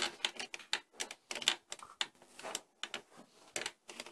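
Plastic Play-Doh Perfect Pop Maker creaking under hard downward pressure on its plunger as dough is forced into the lollipop mould: a rapid, irregular run of sharp clicks and creaks.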